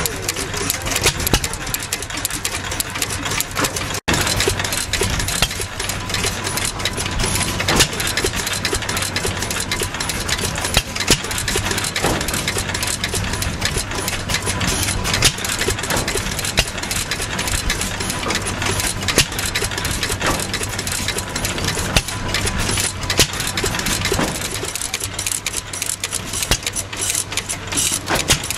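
Massey-Harris 3 HP Type 2 single-cylinder throttle-governed gasoline engine running steadily, firing every cycle, with a low hum and a constant clatter of clicks from its valve gear.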